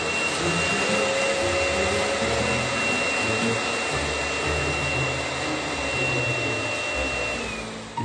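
Robot vacuum's self-emptying dock running its suction motor to empty the docked robot: a loud steady rush with a high whine, which winds down with a falling whine near the end.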